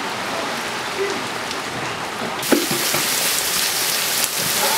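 Heavy rain falling steadily and splashing on the ground and roofs. About halfway through there is a single sharp knock.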